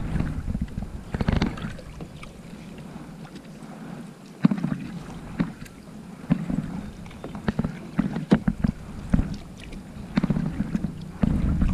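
Kayak paddling: water splashing and dripping off the paddle blades in strokes about every two seconds, with scattered sharp clicks of drips and the paddle in between.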